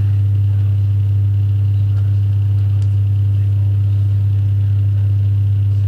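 Steady low electrical hum, centred around 100 Hz with fainter overtones above it, at an unchanging level; a faint tick or two near the middle.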